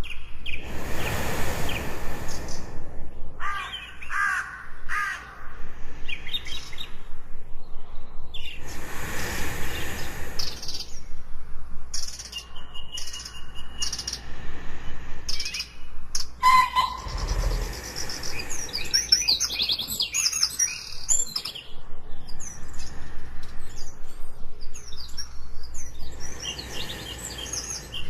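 Layered jungle ambience: many birds chirping and trilling with no pause. Slow, soft swells of breath-like noise come about every eight seconds, a sleeper's breathing.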